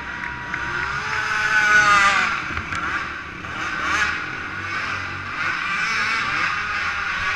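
Several 450-class racing quad ATVs with single-cylinder four-stroke engines revving and passing on a dirt track. The engine notes rise and fall with the throttle, loudest as quads go by about two seconds in and again about four seconds in.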